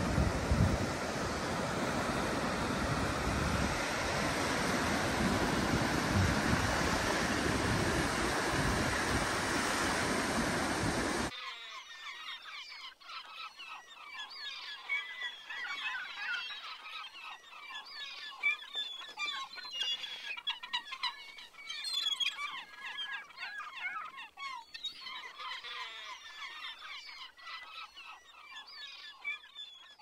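Sea surf with wind noise on the phone's microphone, a steady rushing that cuts off abruptly about eleven seconds in. It gives way to a flock of birds calling, many short overlapping calls at once.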